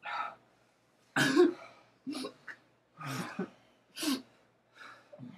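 Short, breathy vocal bursts from a person, about one a second, with quiet gaps between.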